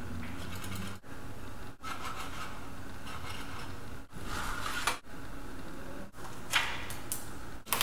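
Paper and thin cardboard pieces of an architectural model being handled and flexed: rubbing and scraping of paper, with two sharp crackles near the end.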